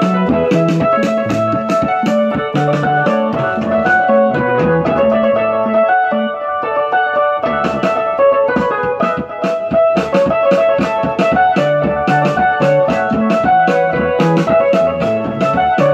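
Electronic keyboard played with both hands in a piano voice: chords and melody over a steady, regular pulse. The pulse thins out for a couple of seconds about five seconds in, then picks up again.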